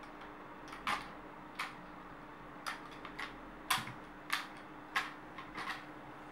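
A run of about ten short, sharp clicks at uneven intervals over a faint steady hum.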